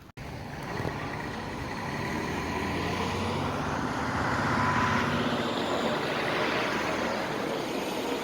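A road vehicle driving past, its engine and tyre noise building to a peak a little past halfway and then fading away.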